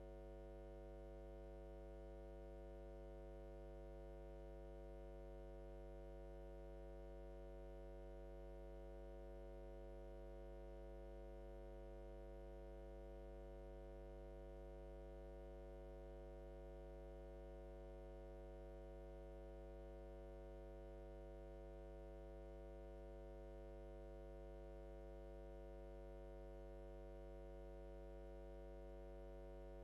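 Faint, steady electrical mains hum with no other sound.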